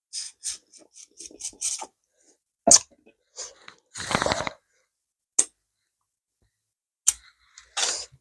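Close-miked eating mouth sounds: a quick run of wet smacks and clicks, then a single sharp click that is the loudest sound, and a longer breathy slurp about four seconds in.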